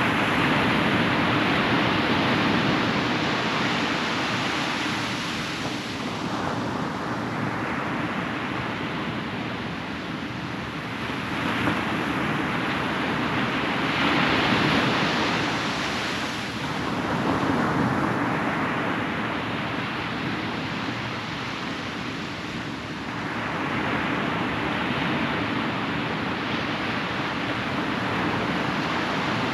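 Ocean surf breaking and washing up a beach, a steady rush that swells and falls back every few seconds.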